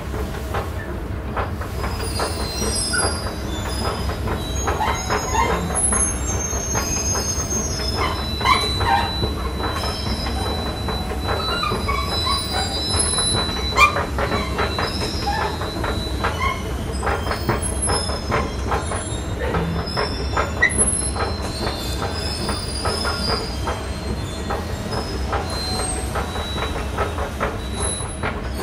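Polybahn funicular car running along its track, heard from on board: a steady low rumble with frequent clicks and knocks from the wheels on the rails, and steel wheels squealing in short high tones, one of them held for several seconds midway.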